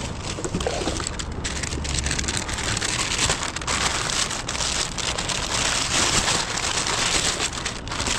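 Plastic packaging rustling and crinkling steadily as a package is unwrapped, a dense crackle of many small clicks.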